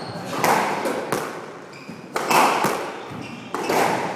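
Squash ball struck by a racquet and rebounding off the court walls: a string of about six sharp smacks, each with a ringing echo in the enclosed court.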